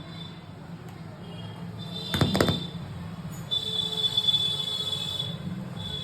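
Roland E-09 keyboard's speakers giving off a steady low hum with hiss and a thin high-pitched whine while no music plays, the whine growing stronger a little past halfway, with a short burst of clicks about two seconds in. This is the noise fault that is later traced to a bad sound IC.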